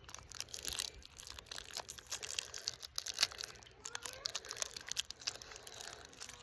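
Candy wrappers crinkling and tearing as wrapped candies are unwrapped by hand, a steady run of small irregular crackles.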